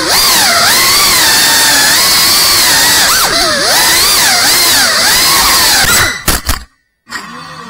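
FPV drone motors whining, the pitch constantly swooping up and down as the throttle changes. Near the end come a few sharp knocks, then the sound cuts out suddenly for a moment and returns quieter, rising again.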